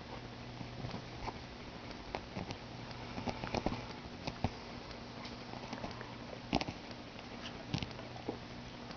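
Tabby kitten scuffling and rustling while it wrestles with knitted yarn cords on an upholstered cushion, with irregular soft scratches and a few sharper taps scattered through. A steady low hum runs underneath.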